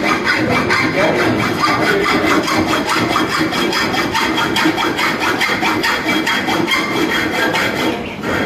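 Saw cutting with quick, even back-and-forth strokes, pausing briefly near the end.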